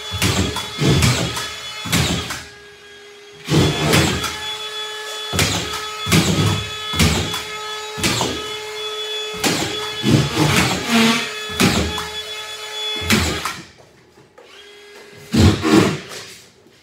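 Cordless collated drywall screw gun with its motor whining steadily while screws are driven one after another through drywall into the ceiling joists, each screw a short grinding burst with a clack as the strip feeds. The motor stops about three quarters of the way through, followed by a couple of loud knocks near the end.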